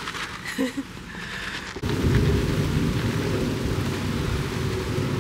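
Wind buffeting the microphone: a loud low rumble that starts suddenly about two seconds in and then keeps on steadily.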